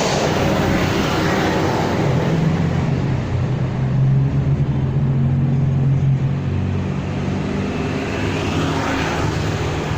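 A motor vehicle's engine running steadily under road noise, with a constant low hum.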